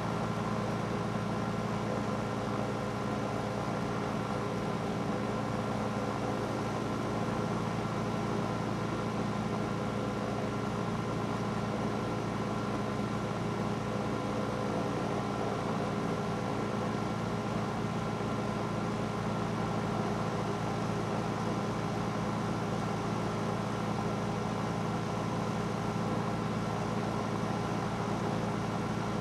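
Cessna 310's twin piston engines running at low power on the ground, a steady, unchanging hum heard inside the cabin.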